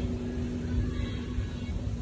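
Steady outdoor rumble with a constant low hum running under it.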